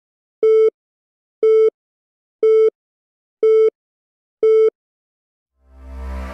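Countdown beeps: a short electronic tone sounding once a second, five times, each about a quarter second long. Near the end a deep rumble swells up.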